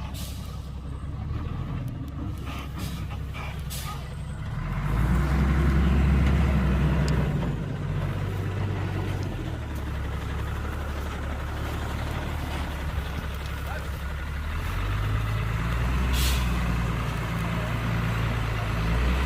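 Heavy diesel engine of earthmoving machinery running, swelling louder under load about five seconds in and again near the end. A brief hiss comes a little past the middle.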